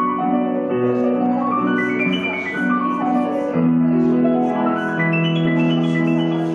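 Piano playing a flowing accompaniment: runs of notes stepping up and down over held low chords, with a new low chord entering about three and a half seconds in.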